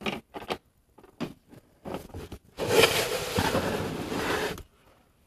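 Handling noise: a few small clicks and taps, then about two seconds of loud scraping and rubbing as the hand-held camera is moved.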